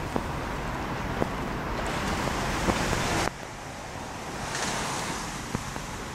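Outdoor wind noise buffeting the microphone, a steady rushing that swells and fades, with a few faint clicks. The noise drops abruptly a little past halfway.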